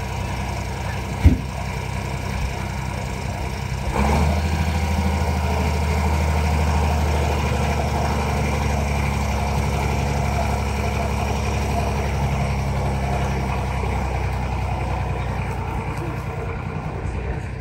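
Mercedes six-litre six-cylinder turbo diesel truck engine running, picking up revs about four seconds in as the truck pulls away, and holding steady after that. A single sharp knock sounds a little over a second in.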